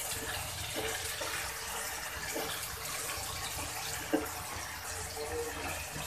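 Steady sizzling hiss of pointed gourd and potato pieces frying in spice paste in a nonstick wok, stirred with a plastic spatula. One sharp knock about four seconds in as the spatula strikes the pan.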